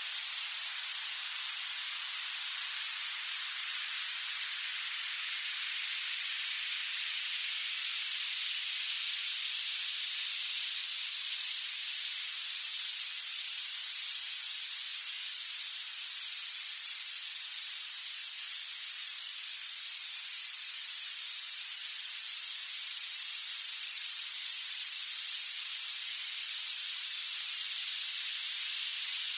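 Violet noise: a steady, even hiss weighted toward the highest pitches, with no low end at all.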